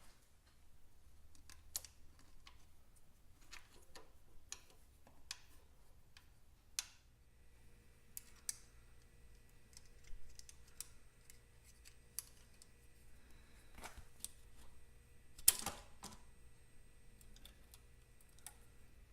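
Scattered clicks and light taps of small hand tools working at a motorcycle gearbox cover, with one louder knock about fifteen seconds in. A faint steady hum comes in about seven seconds in.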